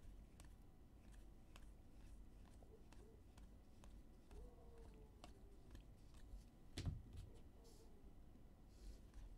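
Faint clicks and rustles of glossy baseball trading cards being flicked through by hand, one card after another, with one sharper tap about seven seconds in.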